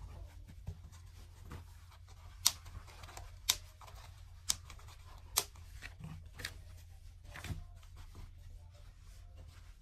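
Plastic snap buttons on a fabric dog dress clicking as they are worked by hand: six sharp clicks about a second apart, with soft fabric rustling over a steady low hum.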